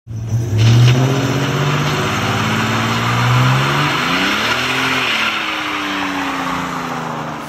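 Buick Regal doing a burnout: engine revving hard while the rear tyres spin and squeal on the pavement. The engine pitch climbs about four seconds in, then eases off.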